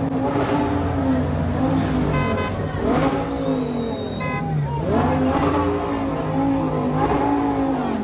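Sports car engines revving hard again and again as a convoy approaches, the pitch climbing and dropping several times over a steady low engine drone.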